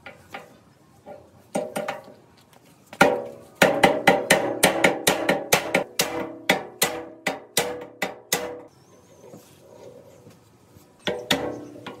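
A hammer striking a wooden block to drive a steel shaft into a bearing on a mini concrete mixer's steel frame, with a ringing note from the metal after each blow. A few light taps come first, then a quick run of hard blows about two to three a second, a short pause, and more blows near the end.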